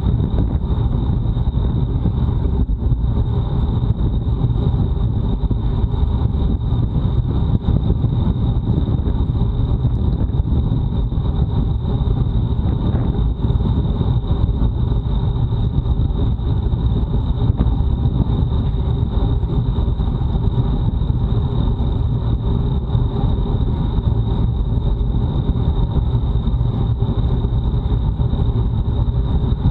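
Wind rushing over an action camera's microphone on a bicycle riding at race speed: a loud, steady, low rumble with a thin, steady, high whine above it.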